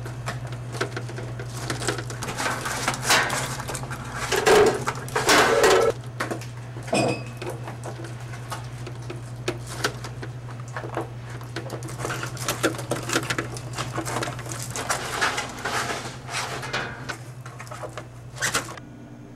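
Plastic syrup tubing being fed by hand down a hole through the bar, rubbing and scraping in irregular bursts with occasional knocks, over a steady low hum.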